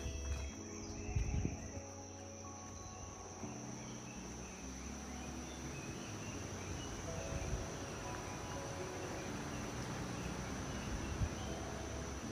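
Crickets trilling, one steady high-pitched tone that never stops, with soft held notes of background music underneath.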